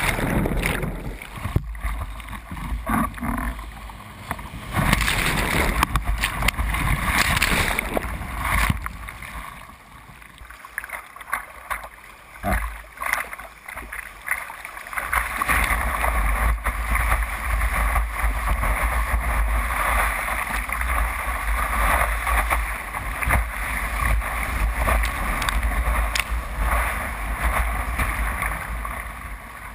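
Breaking surf and whitewater rushing and splashing over a kayak's bow, with wind and water buffeting a deck-mounted camera's microphone in a steady low rumble. It eases off for a few seconds about a third of the way in, then builds again.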